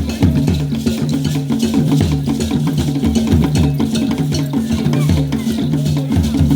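Music with a fast, steady percussion beat of tapping hits over a repeating bass line.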